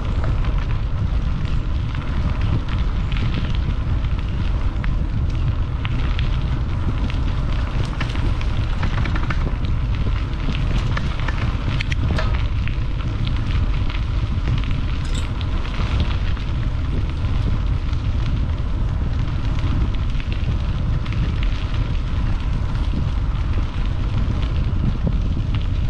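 Wind buffeting the microphone: a steady, loud, deep rumble with a hiss above it and scattered faint ticks.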